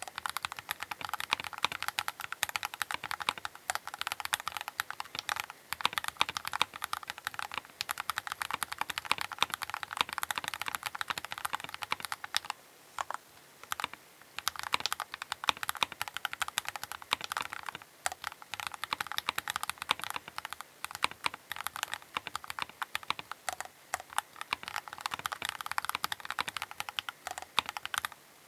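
Continuous fast typing on a Keychron K8 Pro mechanical keyboard: dense, rapid key clacks, with a short pause about halfway through and a few brief gaps.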